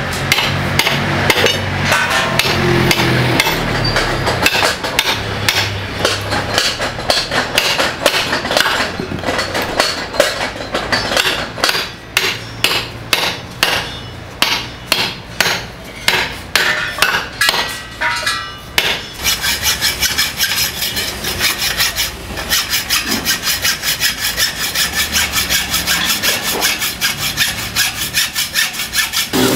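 Steel hammer striking iron rod on a steel block, blows coming about twice a second. About two-thirds of the way in, it changes to quick, even rasping strokes of a hand saw cutting iron rod.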